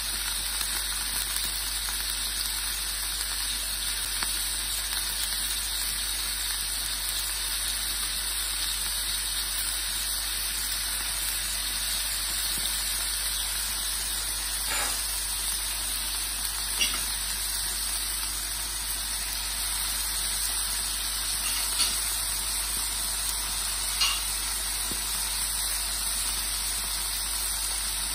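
Chicken pieces sizzling as they fry in a non-stick frying pan, a steady hiss with a few light clicks here and there.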